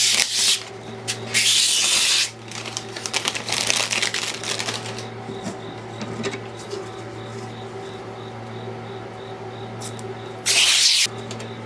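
Protective plastic film being peeled off an acrylic panel, in several crackling, rustling stretches over the first few seconds, followed by quieter handling of the panel over a steady low hum. Near the end there is one more short, loud burst of rustling.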